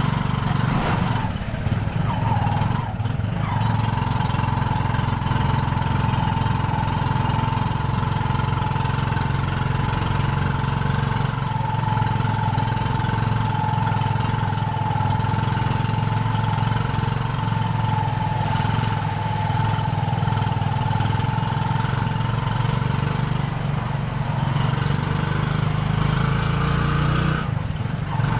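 Motorela's single-cylinder motorcycle engine running steadily as the passenger tricycle drives along the road. A thin, steady high whine sits above the engine note for most of the time.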